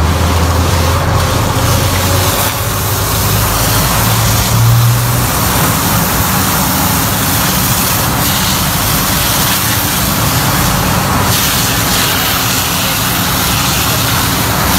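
Water jet from a hose spraying onto a wet floor while brooms scrub it, a steady hiss and splash. A low engine hum runs underneath for the first few seconds.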